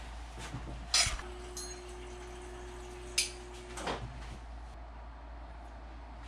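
Metal cutlery clinking against dishes: a sharp ringing clink about a second in and another just after three seconds, over a low steady hum. A steady tone is held for nearly three seconds between the two clinks.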